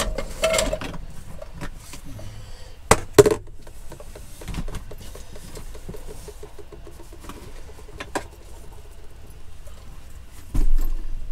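Chopped onion scraped off a plastic chopping board into a saucepan, with two sharp knocks about three seconds in, then scattered light clicks and knocks of kitchen handling.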